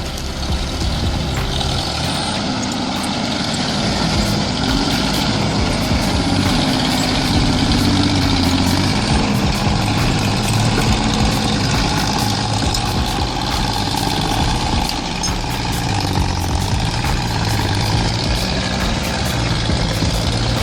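Log skidder's diesel engine running steadily as the machine drags logs, a continuous low drone.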